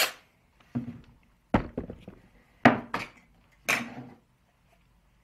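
Hard plastic objects knocked down onto a tabletop four times, about a second apart: a cordless drill-driver and the multimeter's parts being set down. The second knock is the deepest thud.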